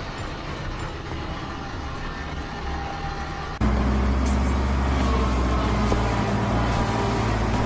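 Steady machine rumble that cuts abruptly to a louder, deeper hum about three and a half seconds in.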